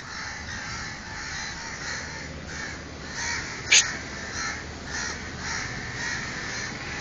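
Crows cawing over and over, about two calls a second, with one brief, louder, sharper call a little before four seconds in.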